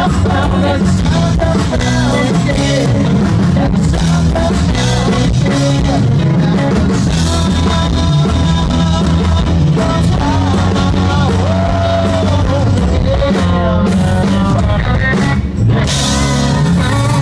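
Live rock band playing a song, with guitars, drum kit and a lead vocal singing.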